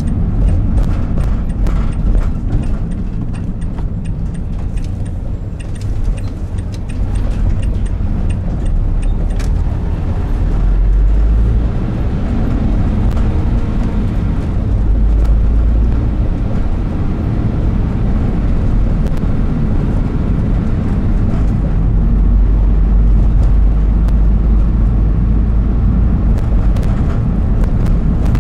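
Car engine and tyre noise heard from inside the cabin while driving, a steady low rumble that grows a little louder about a third of the way in.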